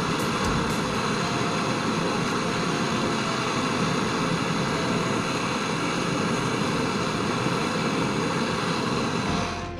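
Gas brazing torch flame running with a steady roar while joining copper refrigerator pipework, cutting off near the end.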